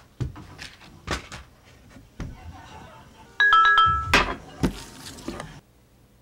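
Handling knocks and rustles, then about three and a half seconds in a quick run of electronic beep tones from a small handheld device, lasting about half a second. Several louder thumps follow, and the sound cuts off suddenly near the end.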